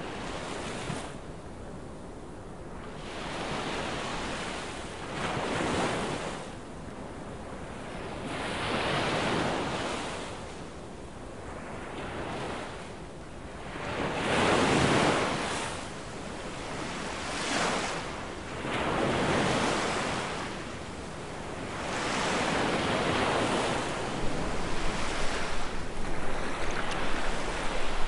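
Baltic Sea surf, waves breaking and washing up the shore, swelling and falling every few seconds. Over the last few seconds wind buffets the microphone.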